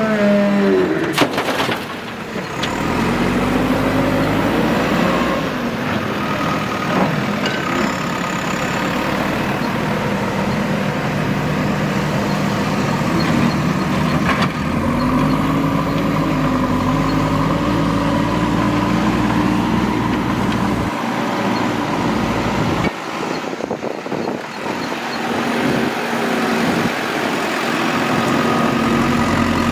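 Heavy construction machine's diesel engine running, its pitch rising and falling as it revs up and down under load, with a few sharp knocks about a second in.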